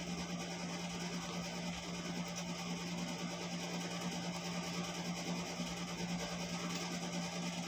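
A steady low hum under a faint, even hiss and crackle of sweet and sour sauce with sliced onions simmering in a frying pan.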